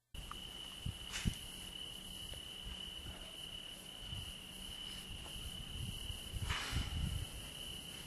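Crickets in one steady, unbroken high trill, over a low background rumble. A few soft knocks come about a second in, and two brief rustling noises, one about a second in and one near the end.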